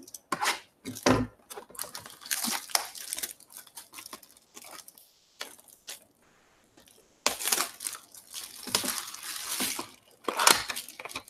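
Clear plastic shrink wrap being torn and crumpled off a Topps Finest trading-card box, crackling in fits and starts, busiest near the end. A couple of handling knocks sound in the first second or so.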